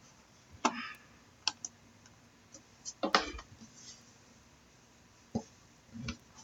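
Computer keyboard and mouse clicks, about half a dozen scattered clicks and taps at irregular spacing.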